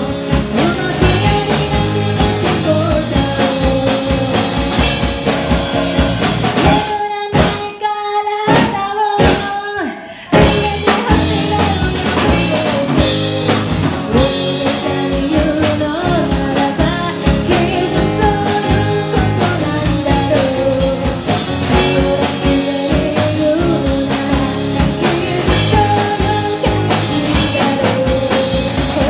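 Live rock band playing: a woman singing over strummed acoustic guitar, electric bass and drum kit. About seven seconds in the band stops on a few short hits while the singing carries on, then comes back in full about three seconds later.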